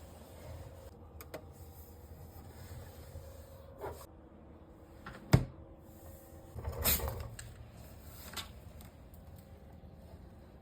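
Clicks and knocks of a refrigerator's doors and fittings being opened and closed by hand. There is a sharp knock about five seconds in, then a longer clatter, with smaller clicks before and after.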